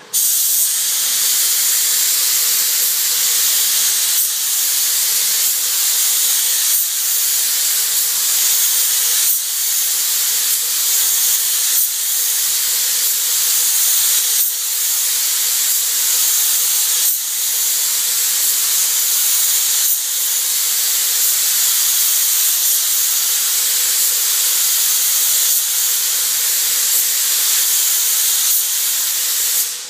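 Compressed-air paint spray gun hissing steadily as it sprays paint onto a boat hull. The hiss starts abruptly, dips briefly a few times, and cuts off near the end.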